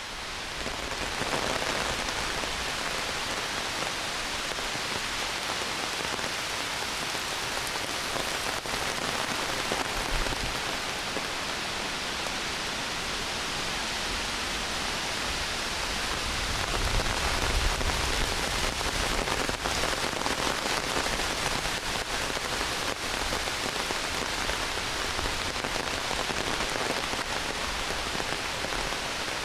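Heavy rain pouring steadily through a forest, a dense even hiss with a few sharp drop hits close by. It fades in over the first second, and a low rumble swells briefly about two-thirds of the way in.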